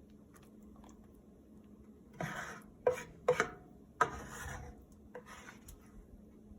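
Utensils scraping and clinking against dishes: a few short scrapes, with two sharp clinks that ring briefly around the middle, over a faint steady hum.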